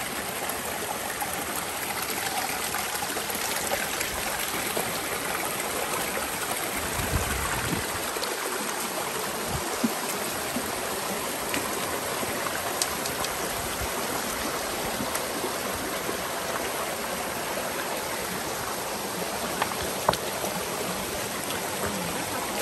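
Shallow stream running over rocks in a steady rush, with a few brief knocks scattered through it.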